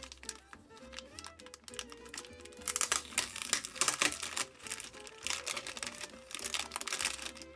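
Packaging being handled and crinkling in two bursts, the first about three seconds in and the second about five seconds in, over soft background music.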